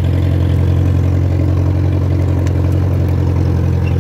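International Harvester B414 tractor's 2.3-litre four-cylinder gasoline engine running steadily at constant speed while the tractor tows a log on a strap.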